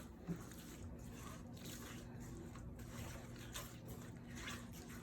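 Faint stirring of a wet sauce mixture of soy sauce, ketchup and egg yolks in a bowl: soft squishing with a few light, irregular clicks.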